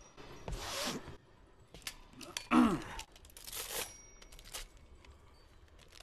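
A hand-operated bus ticket machine being worked as a paper ticket is issued and torn off: three short rasping, clattering bursts with sharp clicks between them. The loudest burst, about two and a half seconds in, has a falling squeal in it.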